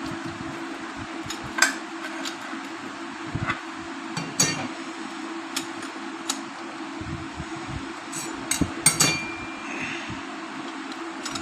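Steel clutch plates of an old Royal Enfield Bullet clinking and clicking against each other and the clutch basket as they are handled and fitted, in irregular sharp strikes, some ringing briefly, with a quick cluster of clinks near the end.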